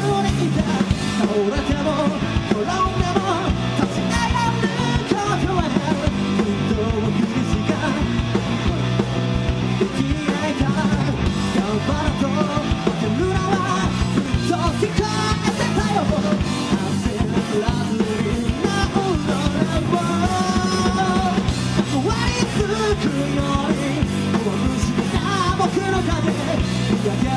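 Live rock band playing: a vocalist singing into a microphone over electric guitars, bass and drums.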